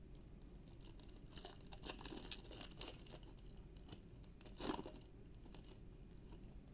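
Foil wrapper of a Panini Prizm football card pack crinkling and tearing as it is opened by hand, faint, with one louder crackle a little past halfway.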